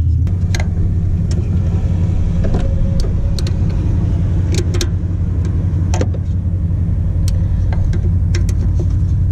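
Ratchet and socket working the power steering pump's 10 mm bolts: scattered short metallic clicks and knocks of the tool, over a loud, steady low hum.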